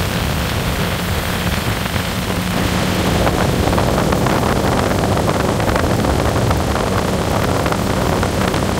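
Small open-bow motorboat under way: its motor running steadily with a low hum, mixed with wind buffeting the microphone and water rushing past the hull.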